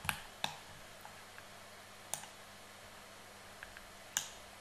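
Computer mouse buttons clicking: a handful of short, separate clicks over quiet room noise, the last one, near the end, the loudest.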